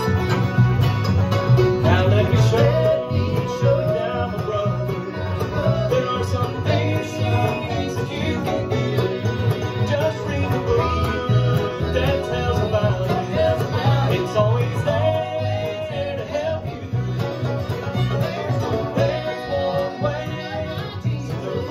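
A bluegrass band playing: fiddle, banjo and acoustic guitars over a steady bass beat.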